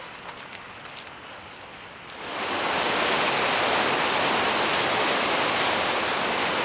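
Footsteps crunching on a gravel path for about two seconds, then a sudden switch to loud, steady rushing of churning white water in river rapids.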